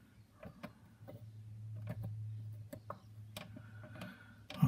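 Faint, irregular small clicks and taps of a hobby knife blade and fingertips on plastic model kit parts as a piece of wood veneer decking is worked into place, over a steady low hum.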